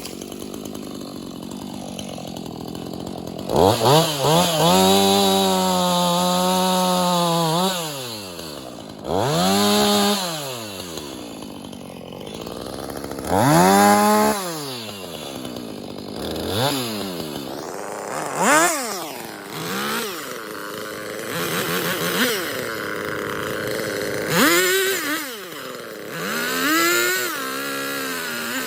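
Husqvarna 450 Rancher two-stroke chainsaw revved to full throttle in a long run, then again in several shorter blips, dropping back to idle between, while cutting small wood.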